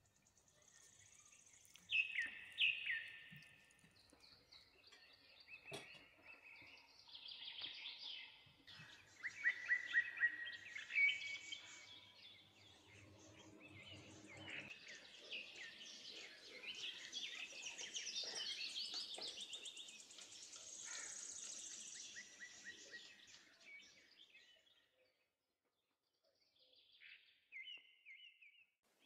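Birds chirping and singing, many short calls overlapping. They drop away to near silence for a moment near the end, then a few chirps return.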